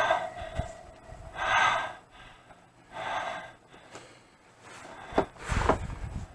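Two heavy, breathy puffs of breath, then a sharp click and a low thud with rustling near the end.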